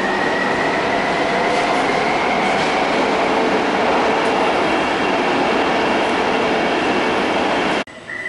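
Taipei MRT subway train running, heard from inside the car: a loud, steady rumble of wheels and running gear with a high whine that rises slightly and then holds. It cuts off suddenly near the end to a much quieter hum.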